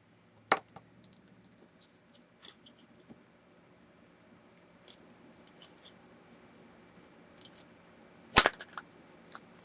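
Plastic surprise Easter egg and small plastic toys being handled, with scattered light clicks, a sharp click about half a second in, and a loud sharp snap about eight seconds in as the egg is pulled open.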